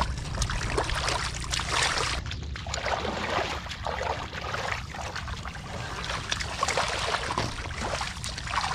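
Shallow water sloshing and splashing in irregular bursts as hands grope through it for catfish, over a steady low rumble.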